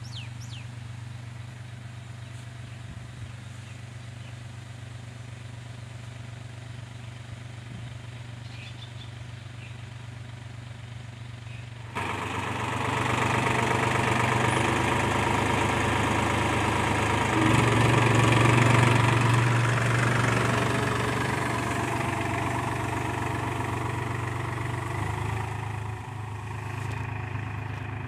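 New Holland 4710 tractor's diesel engine running steadily, quieter at first, then suddenly much louder about twelve seconds in as the tractor works up close pulling a tined cultivator. The engine note rises for a few seconds in the middle and then eases off toward the end.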